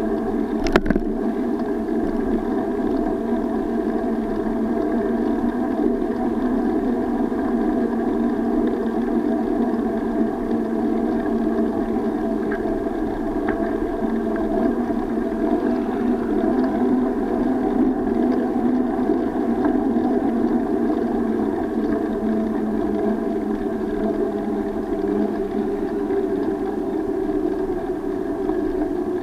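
Steady muffled rolling rumble of a bicycle riding over brick paving, picked up by a bike-mounted SJ4000 action camera, with one sharp knock under a second in as the wheel goes over a paved edge.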